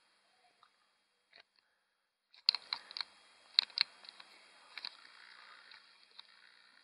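A camera being adjusted by hand: after a quiet start, a run of sharp clicks from handling and button presses, over a faint steady whir as the lens zooms in and refocuses.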